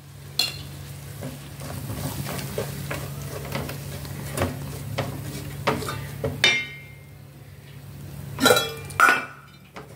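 Flat metal spatula stirring and scraping chilli powder into frying onion-tomato masala in a stainless steel pot, a quick run of scrapes and knocks over a low sizzle. Near the end come a few louder metal clinks against the pot.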